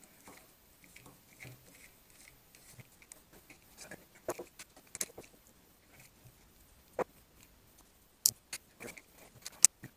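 Scattered small clicks, taps and scrapes of hands dismantling a carbon-fibre FPV racing quad frame to take off its top carbon plate, with a few sharp clicks in the second half.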